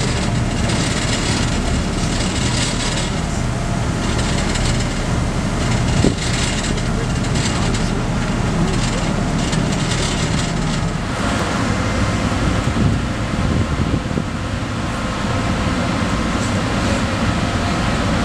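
Ferry at sea heard from the open deck: a steady low engine drone under the hiss of wind and rushing water. The hiss eases about eleven seconds in and a faint higher hum comes through.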